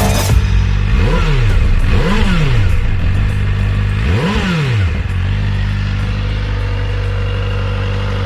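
Kawasaki ZX-4RR's inline-four engine on its stock exhaust, idling and blipped three times. Each rev rises and falls quickly, the third climbing highest, before the engine settles back to a steady idle.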